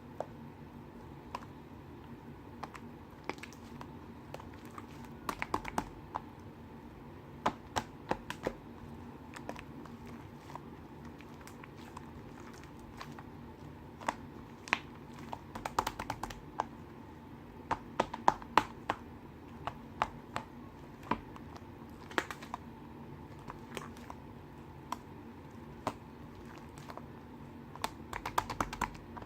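Irregular sharp clicks and taps, coming in scattered clusters, over a faint steady hum.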